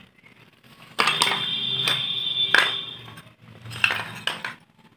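Broken terracotta pottery shards clinking and scraping together as a hand rummages through a pile of them: a dense clatter with a ringing note about a second in, lasting about two seconds, then a few separate clinks near the end.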